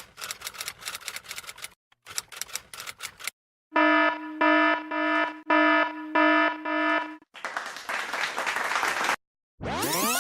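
A run of stock sound effects one after another: typewriter keys clacking in two bursts, then an electronic alarm beeping about six times, then a couple of seconds of applause, and near the end the warbling, sweeping squeal of a tape rewinding.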